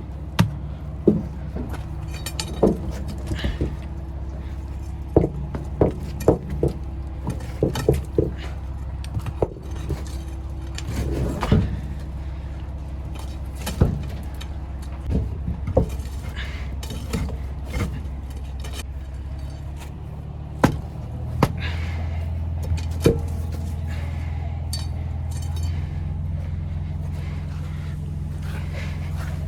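Metal tools knocking and clinking in irregular sharp strikes while working on a truck tyre, over a steady low machine hum that gets louder about twenty seconds in.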